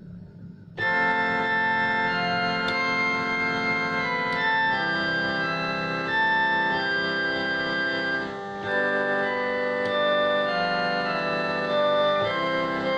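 Instrumental keyboard music in an organ sound, held chords under a simple melody, starting suddenly about a second in, with a brief dip just past the middle.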